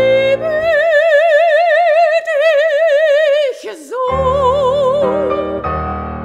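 A soprano voice holds one long sung note with a wide vibrato while the piano falls silent beneath it. After a short breath about three and a half seconds in, she sings on over sustained piano chords.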